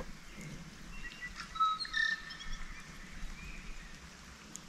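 Birds singing from the shoreline bush: clear whistled notes, a few held for about half a second, clustered in the middle.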